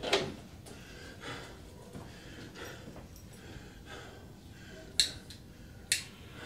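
Two sharp clicks about a second apart near the end, over faint soft rustling.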